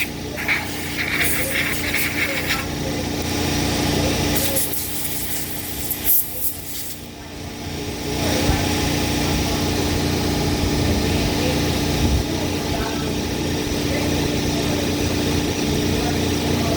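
Small generator engine running steadily. It sags about six seconds in and picks back up a couple of seconds later.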